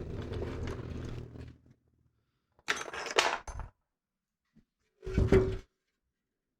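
A steady low hum that stops abruptly about a second and a half in, followed by two short bursts of clattering handling noise with knocks, a few seconds apart.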